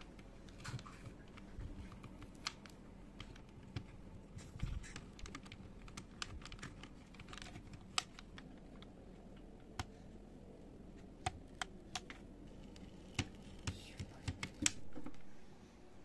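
Keys of an old, dirt-caked HP PS/2 keyboard clicking one by one as they are pressed, at an uneven pace, with a short rubbing sound near the end.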